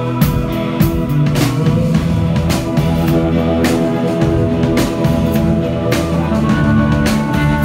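Live rock band playing an instrumental passage: electric guitars over a drum kit, the drums coming in with steady hits just as it begins.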